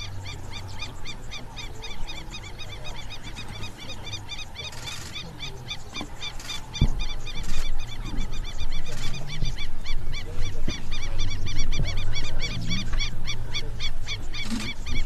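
Birds chirping in a fast, steady run, about five high calls a second, over a low rumble that gets louder about seven seconds in.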